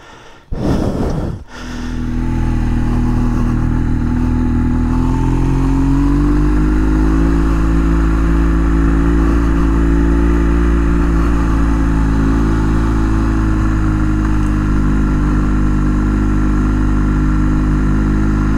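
A BMW GS motorcycle's engine, heard from on board. It comes in about two seconds in, rises in pitch as the bike pulls away, then runs steadily at a constant cruising speed.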